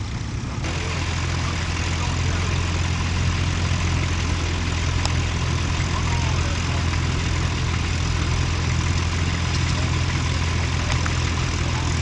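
Vintage tractor engines running steadily under ploughing load, a low even drone that gets louder at an abrupt change less than a second in.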